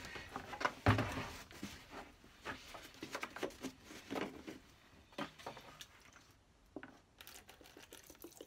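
A plastic petrol can being handled: scattered clicks and knocks as the cap is worked open and the can is shifted, with one louder thump about a second in. Near the end, petrol starts pouring from the can into a plastic tray.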